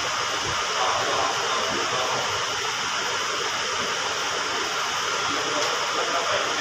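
Steady rushing machine noise, even and unbroken with no clear rhythm.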